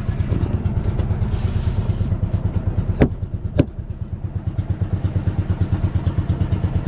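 Small fishing boat's engine running steadily with an even, fast low thudding beat. Two sharp knocks about half a second apart near the middle.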